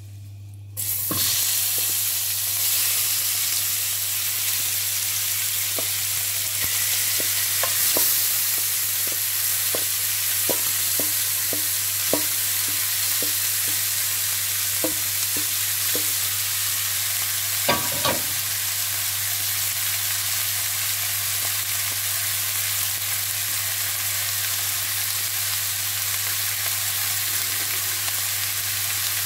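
Marinated pork belly pieces going into hot oil in a pan, starting to sizzle suddenly about a second in, then frying with a steady hiss. Scattered light clicks and knocks come through the middle.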